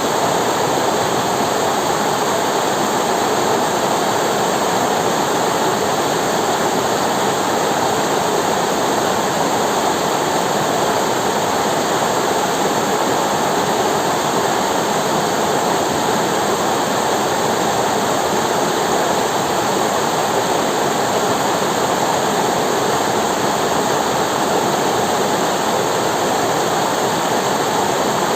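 River water rushing and flowing over rocks in a steady, even roar of white water.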